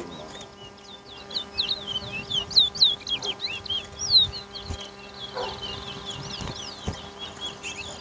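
Towa-towa finches singing: a fast, continuous string of high, sliding whistled chirps.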